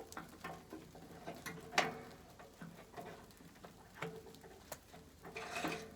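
Scattered faint clicks and light knocks of winch cable hardware being handled while the cable end is fitted to the snowplow, over a low steady hum.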